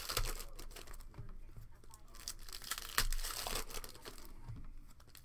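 Foil trading-card pack wrappers being torn open and crinkled by hand: a run of irregular rips and crackles, loudest about three seconds in.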